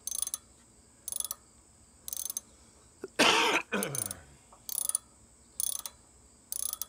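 Socket ratchet turning the oil drain plug on a Scag walk-behind mower's engine, clicking in short bursts about once a second as the handle is swung back and forth. One louder short vocal noise about three seconds in.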